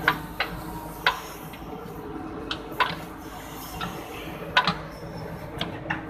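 JCB backhoe loader's diesel engine running steadily while the bucket digs soil, with a scatter of sharp, irregular clicks and knocks from the digging bucket.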